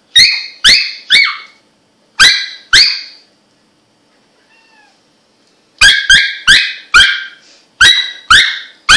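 Russian toy terrier making short, sharp, high-pitched squeaks like a squeaky toy: three in quick succession, then two, a pause of about three seconds, then a fast run of about seven.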